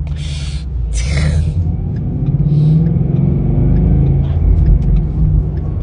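Two short, sharp hiccups near the start, over the steady low rumble of a car's engine and road noise. The rumble grows louder in the middle.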